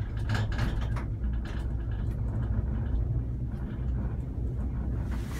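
Steady low rumble of a gondola cable car running up its cable, heard from inside the cabin, with a brief hiss near the end.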